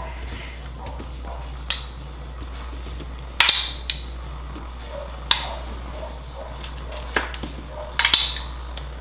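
A metal spoon clinking and tapping about five or six times, spaced out, as minced garlic is spooned and tapped off onto broccoli and asparagus.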